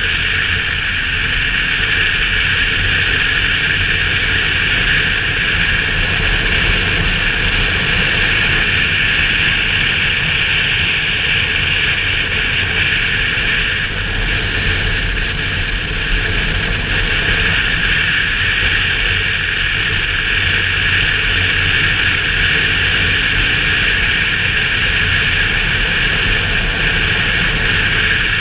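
Steady wind and road noise on a helmet-mounted camera on a BMW R1200GS motorcycle riding at a constant speed, with the low drone of its flat-twin engine underneath.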